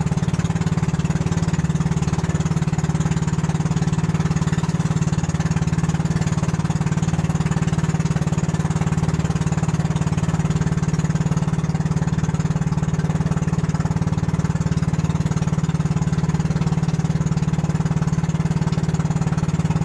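Boat engine running steadily under way, a constant low drone with a fast, even pulse.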